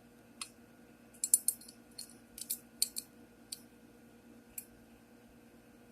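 Small metal sewing-machine parts clicking and clinking as they are handled and fitted back: a quick run of sharp taps, densest about a second in, thinning to single clicks by about four and a half seconds.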